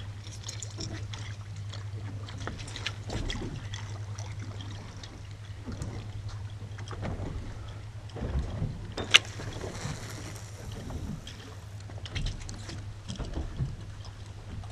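Water slapping and lapping against a small boat's hull on choppy open water, over a steady low hum. A sharp knock about nine seconds in is the loudest sound.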